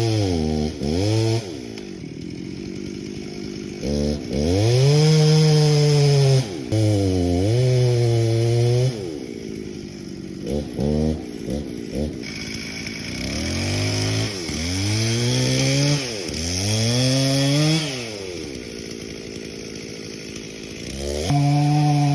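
Two-stroke chainsaw engine revved up hard and let drop back to idle again and again, with a run of short quick throttle blips about halfway through.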